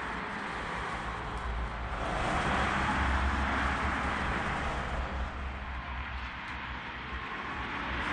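Road traffic passing: a steady rumble and hiss that swells about two seconds in and again near the end.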